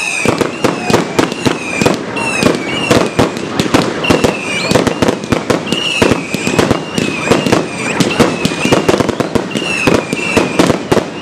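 Fireworks battery firing in rapid succession: a dense, continuous run of bangs and crackles, with whistling shots that waver and fall in pitch about once a second.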